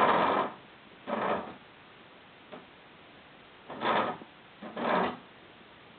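Wooden stool scraping and knocking on a tile floor as a baby pushes it, in a few short bursts, with a faint click between them.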